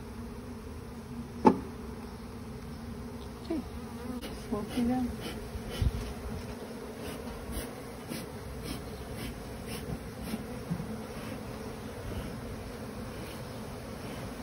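A honeybee colony buzzing steadily in a low hum. A sharp knock about one and a half seconds in, and a few softer knocks a little later.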